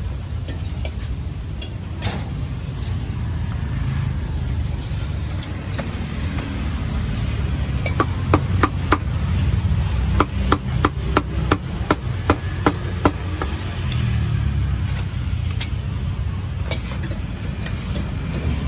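A cleaver chopping meat at a street food stall: about a dozen sharp chops, roughly two a second, in the middle of the stretch, over a steady low rumble of street traffic.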